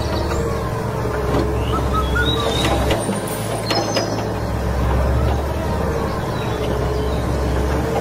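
Low, steady engine rumble of an excavator at work, which drops out for a moment about three seconds in. Faint bird chirps sound over it.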